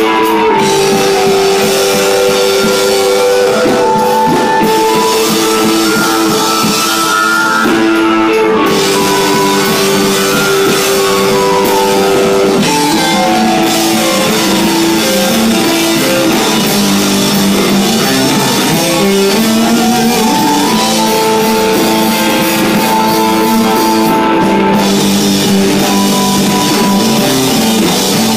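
Live rock band playing loudly: guitar with long held notes that glide slowly up and down in pitch, over drums.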